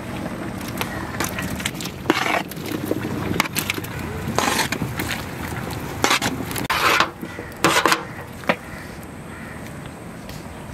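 A ladle scraping and stirring in a cooking pot as boiled cassava is mixed into cooked mutton. There are several separate loud scraping strokes over a steady background rush.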